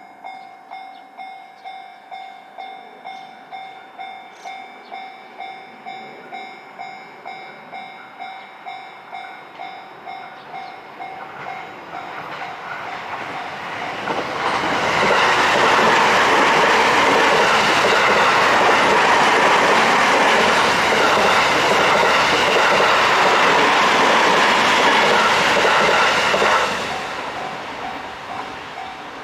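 Japanese level-crossing warning bell ringing in a steady beat of about two strokes a second. About halfway through, an electric train of the JR Sobu Main Line passes over the crossing for about twelve seconds, its running noise drowning out the bell, which is heard again as the train clears near the end.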